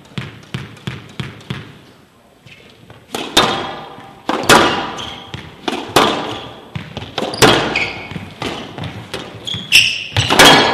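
A squash ball bounced lightly on the floor a few times, then a rally begins: loud racket strikes and the ball smacking the walls of a glass squash court, each hit about a second apart and ringing on with echo. Court shoes give short squeaks on the floor near the end.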